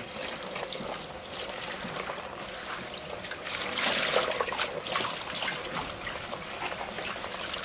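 Kitchen tap running in a thin stream into a stainless steel sink while hands rinse and swish leafy greens in a colander, water trickling and splashing, louder around the middle.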